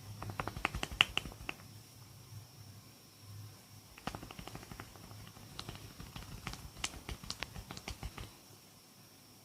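Hands at work in an oil head massage, making quick runs of sharp snaps and clicks: a short burst of about eight in the first second and a half, then a longer, denser run of about four seconds.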